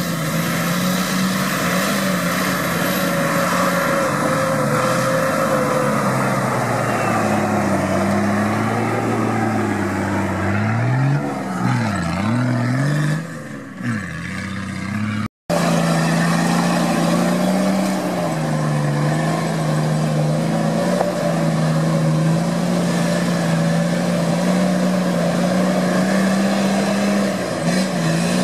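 Nissan Patrol GR's engine labouring off-road under load, its revs rising and falling as it crawls and climbs. The sound cuts out suddenly for a moment a little past halfway, then the engine carries on.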